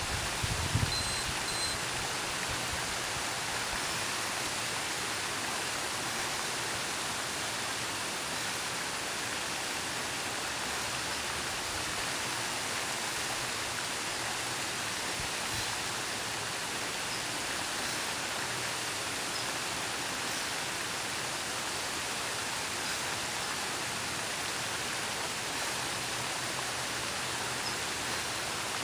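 Steady rushing of a small waterfall spilling over rocks into a pond, an even noise without change.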